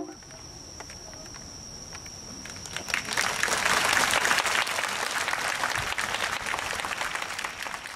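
Audience applauding, starting about three seconds in after a short quiet stretch and continuing as a dense patter of clapping.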